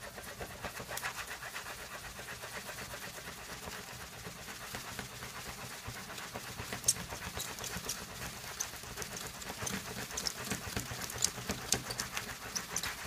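Plastic tray of water-saturated sand shaken rapidly back and forth by hand, a steady rhythmic swishing with a few sharper clicks in the second half. The shaking simulates an earthquake and sets the wet sand liquefying.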